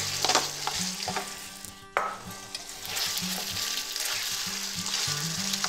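Skillet of ground lamb and beef filling with broth sizzling while a wooden spoon stirs in corn and peas, with light scrapes and knocks of the spoon against the pan.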